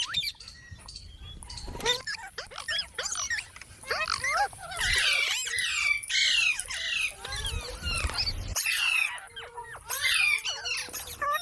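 Green parrot chirping and squawking in a rapid run of short, sharp calls, densest in the middle and again near the end.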